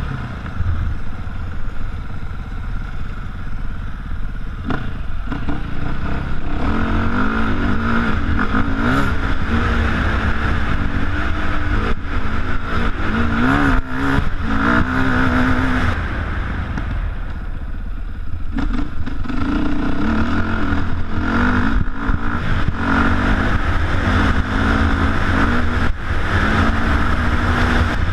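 KTM off-road motorcycle engine under way, its revs rising and falling as the throttle is worked. It eases off for a couple of seconds a little past the middle, then picks up again.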